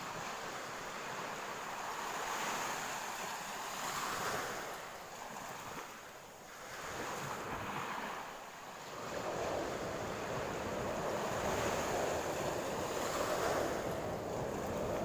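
Wind and water noise: a rushing wash that swells and eases every couple of seconds, becoming steadier and louder about nine seconds in.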